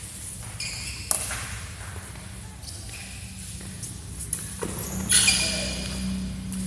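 Badminton rally: sharp racket strikes on the shuttlecock, one about a second in and several more in the middle, with high squeaks of court shoes on the mat, the loudest just after five seconds.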